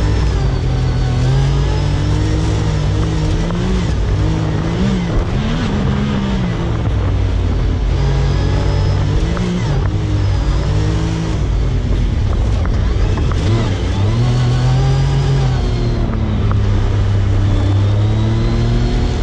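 Side-by-side UTV engine running hard while driving, its revs rising and falling over and over with the throttle, over a steady rush of driving noise.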